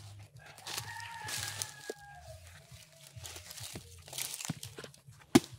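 Bolo blade chopping into the husk of a young green coconut, a run of crunching, tearing strokes ending in one sharp, loud chop near the end. A rooster crows once in the background, a long falling call in the first two seconds.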